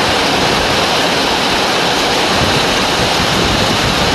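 Heavy rain pouring steadily, falling loudly on the carport roof overhead and splashing on the wet concrete.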